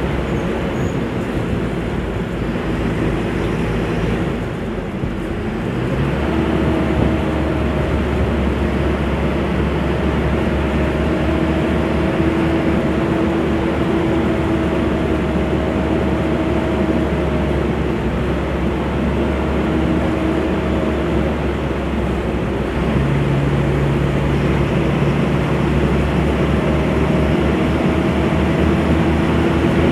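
Mercedes-Benz O-500U city bus's diesel engine running with a steady drone. Its note changes about six seconds in and again near 23 seconds, and a humming tone comes and goes over it.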